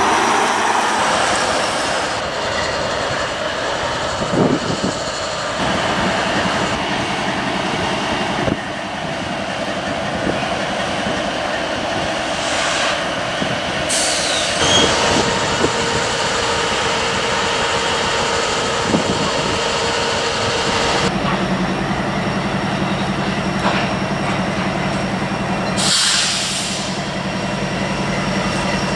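Diesel freight trains passing: locomotive engines running and freight cars rolling along the rails. The sound changes abruptly several times between different trains.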